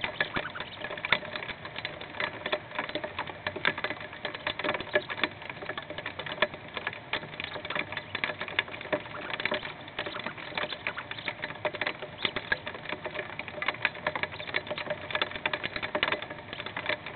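Hail pelting a nest box, heard from inside the box: a dense, irregular clatter of hard taps.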